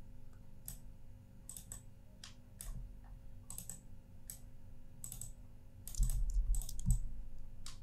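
Sharp, scattered clicks of a computer mouse and keyboard, about one a second with some in quick pairs. A low rumble comes in about six seconds in.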